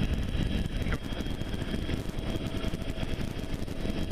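Helicopter hovering: rotor and turbine running as a steady low rumble with a faint steady high whine, heard through the open cabin door with wind on the microphone.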